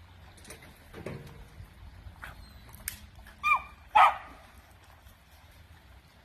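A dog barks twice in quick succession about halfway through, with a few faint knocks and rustles before the barks.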